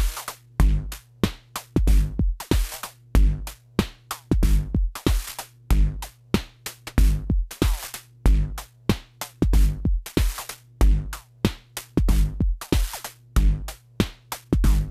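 Eurorack modular drum pattern: Orgone Accumulator kick and snare, hi-hats and a sub kick, steady and rhythmic over a steady low tone. The voices pass through the Animodule M1xxor with its sequencer clocked, which switches them on and off for a shifting, gated rhythm.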